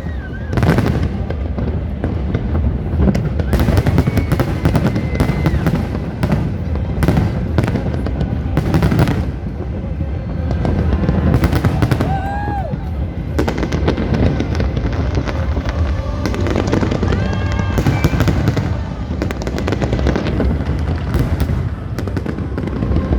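Aerial fireworks bursting in quick succession: many sharp bangs and crackles over a steady low rumble, with music playing alongside.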